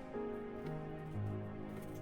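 Background music with sustained notes that change slowly and a low note coming in about a second in.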